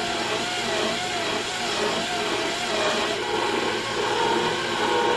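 DeWalt cordless drill running slowly in low gear, turning a two-flute tap into the end hole of an aluminium T-slot extrusion. The motor's whine wavers gently in pitch, then settles on a higher tone about three and a half seconds in.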